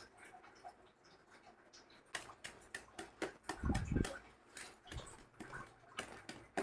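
A spoon and a bowl pressing and tapping cooked coconut candy mixture flat in a plate. There is a run of light clicks and taps from about two seconds in, with a dull thump near the middle.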